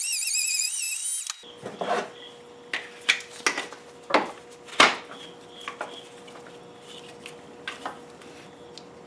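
A small cordless rotary tool with a cutting wheel whines at high speed, its pitch wavering as it grinds clearance inside a VW oil pump's windage tray. The whine cuts off about a second in. Then come scattered clicks and knocks as the tray is handled and pressed onto the new oil pump.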